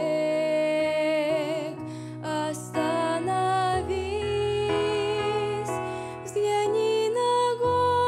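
A woman singing a slow Christian song solo, a wavering melody with vibrato, over a soft accompaniment of long held chords.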